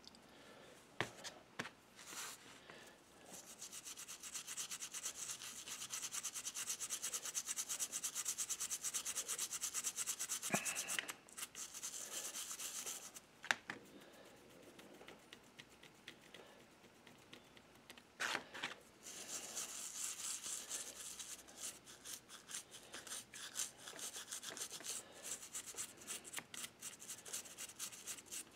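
Toothbrush scrubbing a small brass locomotive-model truck with cream cleanser to remove tarnish: quick back-and-forth bristle strokes in two long bouts with a quieter pause of a few seconds between, plus a few light clicks.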